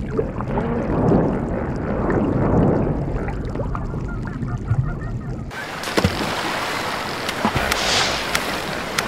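Muffled, honking animal calls with bending pitch over a low underwater rumble. About five and a half seconds in, these cut off abruptly and give way to a brighter hiss with sharp clicks and two swells of hiss.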